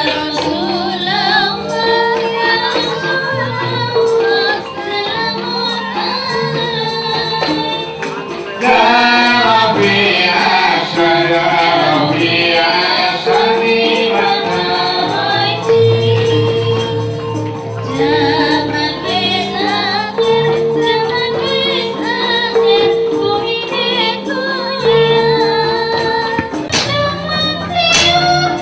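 Javanese gamelan music accompanying a wayang kulit shadow-puppet play: metallophones ring steady struck notes over sharp percussion strokes, while a female singer (sinden) sings a wavering melody over the ensemble, coming in strongly about a third of the way in and again past halfway.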